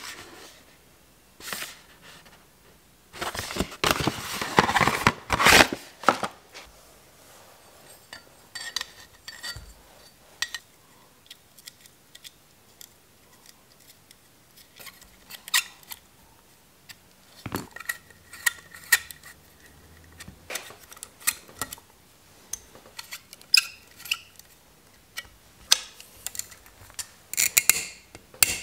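Cardboard packaging rustling for a few seconds, then scattered metal clinks and taps, some ringing briefly. The sounds come as a 104 BCD bicycle chainring is fitted onto a crankset and its chainring bolts are turned with hex keys.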